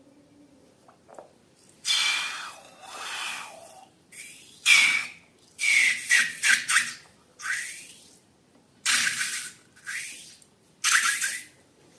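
Rubber balloons squeezed and emptied in a string of about nine short, hissing bursts, several with a squeaky squeal that falls in pitch as air and contents squirt out through the neck.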